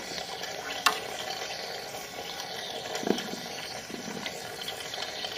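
Motor oil trickling out of an open priming port on a Gen III Hemi engine block into a plastic catch jug, with a watery gurgle as air seeps back into the oil system. A sharp click about a second in.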